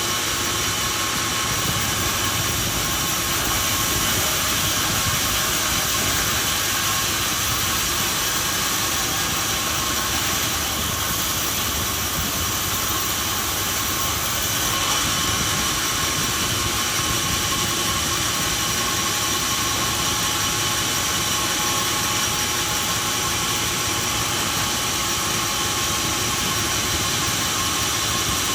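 Sawmill machinery running: a loud, steady mechanical noise with a faint constant whine, unchanging throughout.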